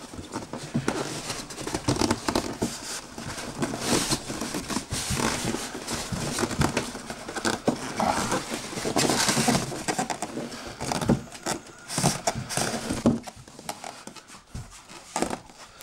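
Cardboard box being worked off styrofoam packing: irregular rustling and scraping of cardboard against foam, with short knocks, easing off near the end.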